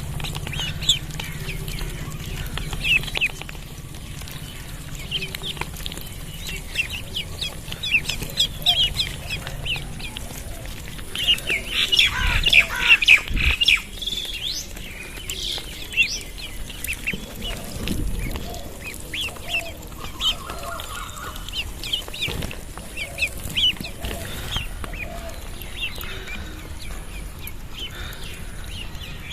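A group of duckling chicks peeping: many short, high chirps in quick succession, busiest and loudest around twelve to fourteen seconds in.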